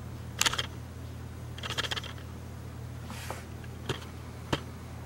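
Canon SX510 HS compact camera's lens mechanism making short bursts of clicking and rattling, five in all, over a steady low hum. It is the sign of the camera's fault that brings up its E32 error.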